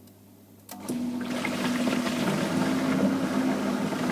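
Hansa dishwasher running a wash: the circulation pump's steady hum with water spraying and sloshing inside, starting with a click about a second in. The newly fitted pump motor is running normally.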